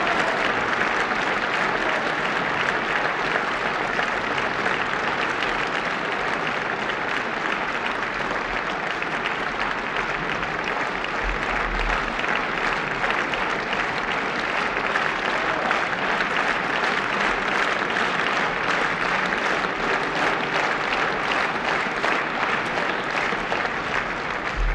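Large audience applauding steadily: dense, even clapping that neither builds nor dies away.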